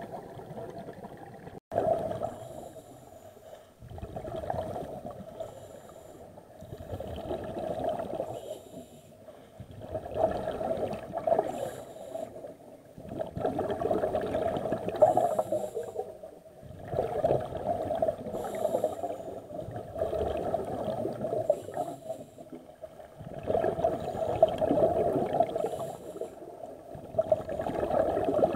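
Scuba regulator exhaust bubbles underwater: a diver breathing out through the regulator, each breath a gurgling rush of bubbles lasting a second or two, repeating about every three seconds.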